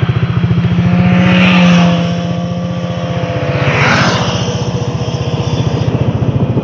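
A 150 cc single-cylinder scooter engine idling with a steady, even pulse, while motorcycles ride past close by, swelling up and fading away about a second and a half in and again about four seconds in.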